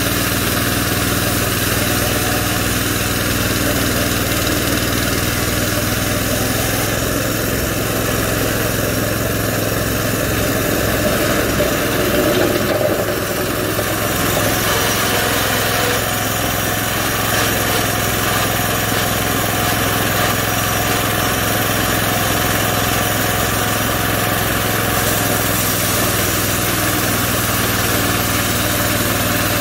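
Small gasoline engine of a homemade bandsaw mill running steadily under load while the saw head travels along a log, the band blade cutting a board.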